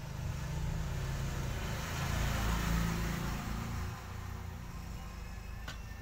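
A road vehicle passing by, its rumble and hiss swelling to a peak about halfway through and then fading. A short click comes near the end.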